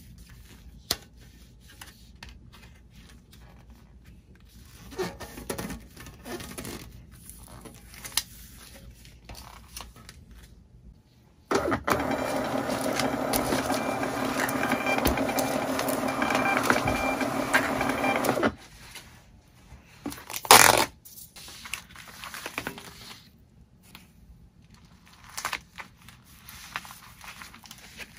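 Thermal label printer running steadily for about seven seconds as it prints a shipping label. Soft rustling of packaging comes before and after, with a brief loud rasp about two seconds after the printer stops.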